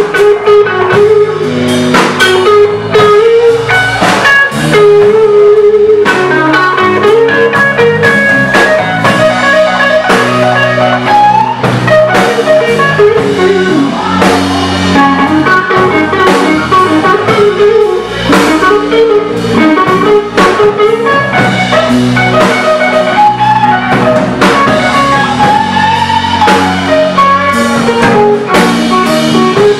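Live blues-rock band playing an instrumental passage: electric guitar lead lines with bent notes over electric bass and a drum kit.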